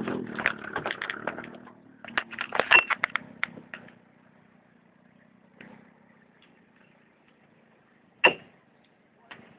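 Off-road vehicle's engine running under a quick clatter of knocks and rattles for the first four seconds. Then it goes quiet apart from three separate knocks, the loudest about eight seconds in.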